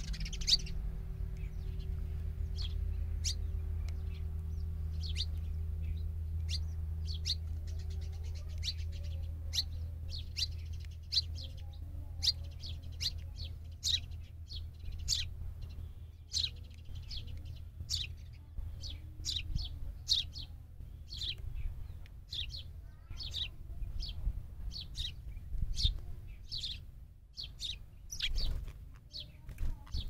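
House sparrows chirping: short, sharp chirps a second or so apart, coming quicker in the second half, with a flutter of wings near the end as the birds take off. A low steady hum runs underneath for the first half, then fades.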